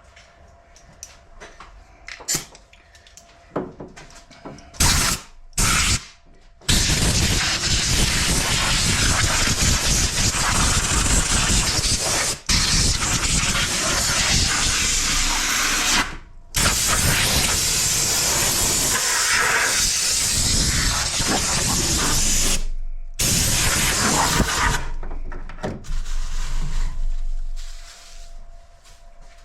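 A few faint clicks, then a loud, steady hiss of rushing air or spray in three long bursts of about nine, six and two seconds, each cutting off abruptly.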